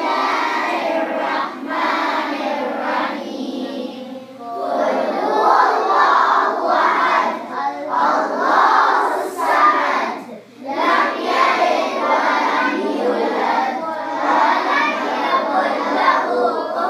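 A crowd of children's voices chanting and shouting together, with two brief lulls.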